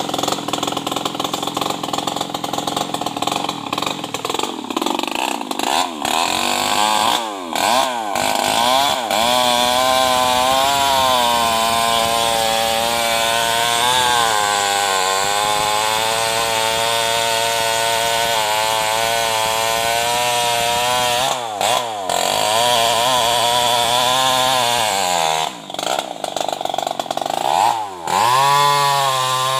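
An unmuffled two-stroke New West 588 chainsaw running. It is uneven at first, then goes to full throttle about four seconds in and cuts through a hard, heavy juar log. The engine pitch sags and wavers under the load of the cut, and drops briefly several times when the throttle is eased.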